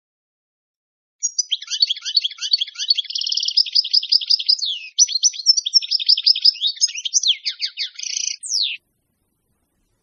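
European goldfinch song: a fast, tinkling twitter of trills and short buzzy notes, starting about a second in and stopping shortly before the end.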